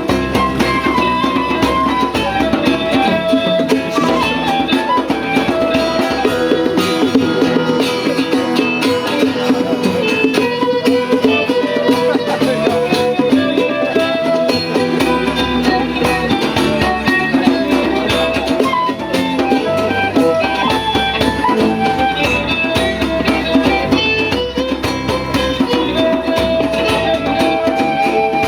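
Live band music with guitar and drums playing a steady beat.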